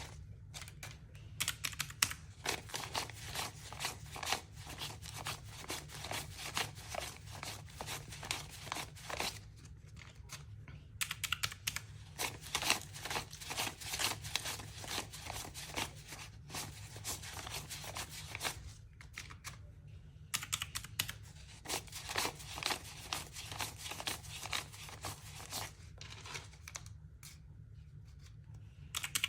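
Paper banknotes being counted by hand: a rapid run of crisp flicks and rustles as bills are peeled off one by one, broken by a few short pauses.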